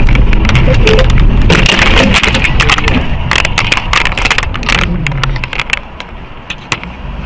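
Road vehicle crash picked up by a dashcam's microphone: a heavy rumble with a dense run of crunching knocks and clatter, tailing off over the last two seconds.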